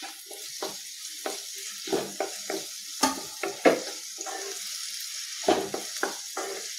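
Chopped tomato and onion sizzling in hot oil in a kadai while a wooden spatula stirs them: a steady sizzle under irregular scraping strokes of the spatula against the pan.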